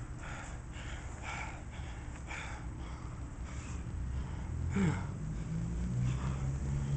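A man breathing hard in short, sharp exhales, about two a second, while doing crunches. In the last couple of seconds a motor vehicle's engine hum comes up underneath and rises in pitch.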